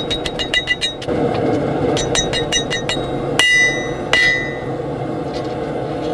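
Blacksmith's hand hammer striking red-hot steel against an anvil, each blow with a bright metallic ring. There are two quick runs of light blows, about seven a second, then two heavier blows that ring on longer, about three and a half and four seconds in, after which the hammering stops.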